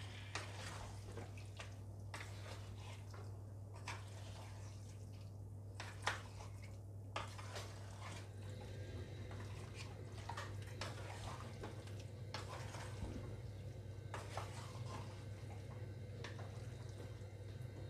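Wooden spoon stirring raw chicken pieces and sliced onions in a clay cooking pot: soft wet squelching with scattered light knocks and scrapes of the spoon against the pot, the sharpest about six seconds in, over a steady low hum.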